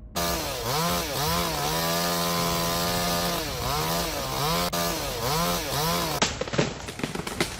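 Two-stroke chainsaw revving up and down several times, its pitch rising and falling with the throttle and held steady once for about a second and a half. Near the end it gives way to a rougher, choppy stretch of saw noise.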